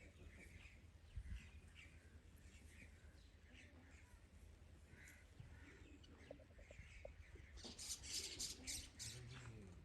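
Faint chirping of small birds, in short scattered calls. A brief harsh, scratchy burst comes near the end.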